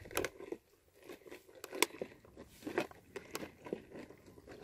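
Hand-pumped backpacking water filter being worked by hand, its pump handle giving a series of short, irregular clicks. The filter is not drawing properly: water rises only partway up the intake hose and stops.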